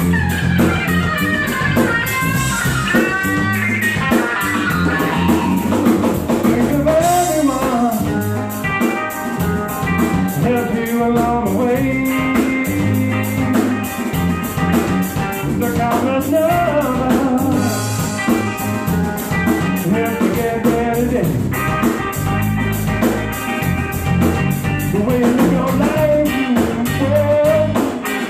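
Live rock band playing an instrumental stretch: electric guitar lines that bend in pitch over bass and drum kit.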